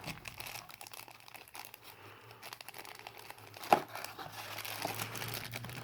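Packaging crinkling and rustling with scattered small clicks as a razor handle is worked out of its box, with one sharper tap about three and a half seconds in. A faint steady low hum runs underneath.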